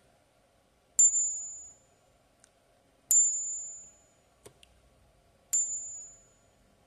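A counterfeit Morgan dollar, balanced on a fingertip, is struck three times with another silver dollar in a ping test. Each tap gives a clear, high ring that fades within about a second. A coin-tester app then rates the ring bad, marking the coin as fake.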